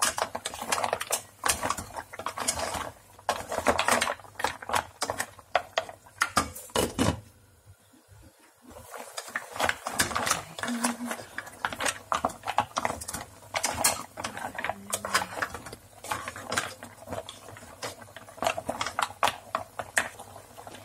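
Green-lipped mussel shells clattering against each other and the pot as they are stirred with a wooden spatula: quick irregular runs of hard clicks, with a pause of about two seconds near the middle.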